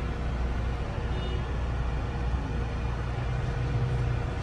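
Car engines running with a steady low rumble, heard from inside a car's cabin, with a faint steady hum over it.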